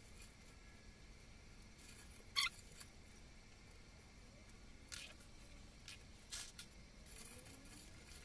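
Porcelain insulator beads clicking against each other as they are threaded onto a spring heater coil: a few faint, sharp clicks, the loudest about two and a half seconds in.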